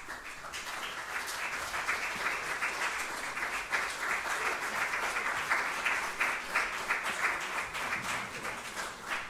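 Audience applauding: a dense, steady clapping that starts abruptly, holds, and begins to die away near the end.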